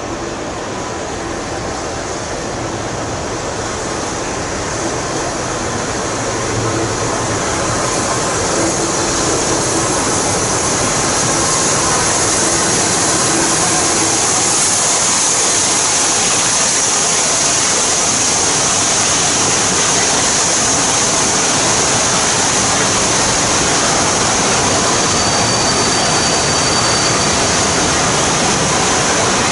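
Steam locomotive 35028 Clan Line, a rebuilt Bulleid Merchant Navy class Pacific, running past with its rake of Pullman coaches: a steady noise of the train on the rails that grows louder over the first dozen seconds and then holds. A brief high squeal comes near the end.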